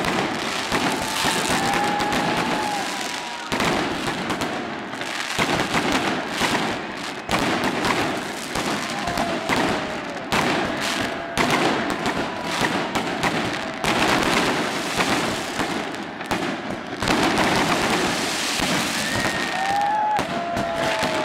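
Fireworks going off close by in a dense, continuous barrage of bangs and crackling, with a few faint wavering high tones over it.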